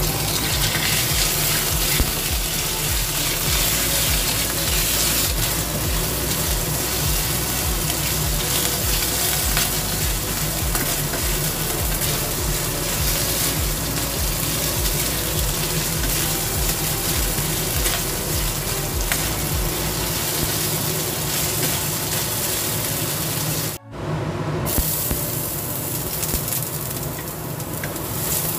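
Sliced pork sizzling in hot oil in a frying pan as it goes in and is stir-fried with a wooden spatula. After a brief break near the end, garlic cloves sizzle in the pan.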